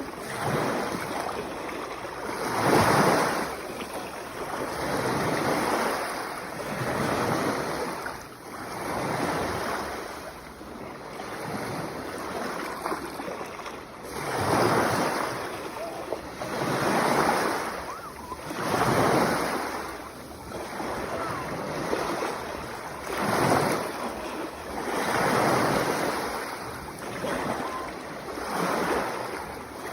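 Sea waves breaking and washing in, a new surge rising and fading every two to four seconds.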